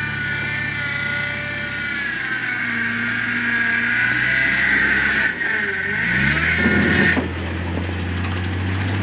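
Jeep Wrangler's engine running under load as it crawls over rocks, with a high whine over it. About six seconds in the engine revs up, and just after, the whine cuts off suddenly while the engine keeps running.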